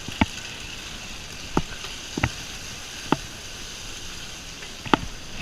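Onions, garlic and peanut butter sizzling in a hot pot on the stove, a steady hiss. About five sharp clicks and knocks of utensils on the pot and jar are spread through it.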